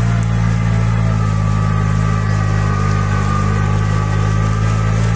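Kubota 2741 four-wheel-drive tractor's diesel engine running steadily under load, pulling a disc harrow that throws soil up against sugarcane rows. Its pitch holds level the whole time, the engine not dropping its revs under the load.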